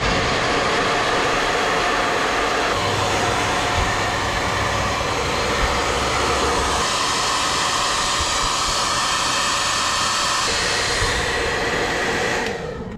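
Heat gun running steadily, a rush of blown air with a constant hum over it, heating glue on a shoe sole to reactivate it. The hum shifts slightly near the end, and the gun stops shortly before the end.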